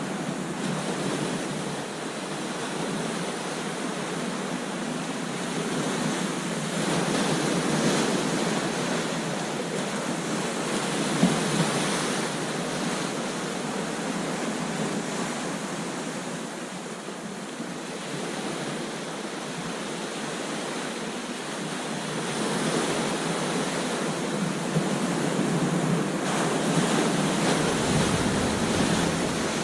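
Ocean surf breaking on a beach, a continuous wash of water that swells and eases as waves come in, with some wind on the microphone.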